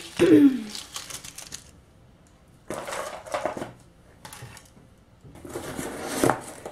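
Small plastic party favours (toy rings, pencils, curly silly straws) clattering and rustling as they are gathered up off a hard floor and put away, in several bursts with short pauses between. A brief voice sound right at the start.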